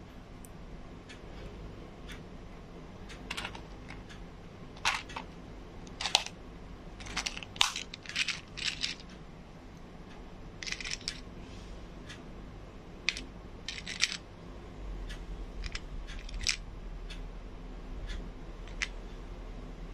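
Plastic tweezers picking through a clear plastic box of small pushpins: irregular sharp clicks and short clattering rattles of plastic on plastic, busiest in the first half.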